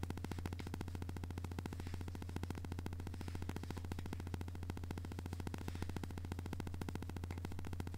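Steady low electrical hum with a rapid, even buzz on top: constant noise in the recording chain rather than any sound of the makeup work.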